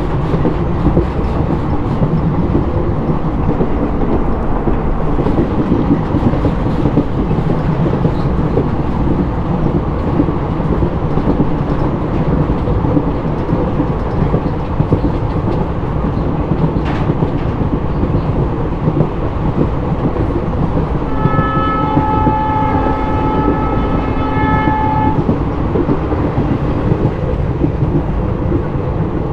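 Express train running with a steady heavy rumble of wheels on track, heard from aboard. About three quarters of the way through, the diesel locomotive's horn sounds once, a steady multi-tone blast of about four seconds.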